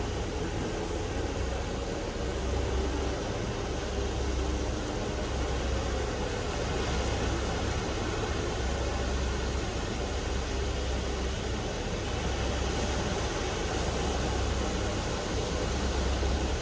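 Small waves washing on a sandy beach, with wind buffeting the microphone in a low rumble that swells and eases every few seconds.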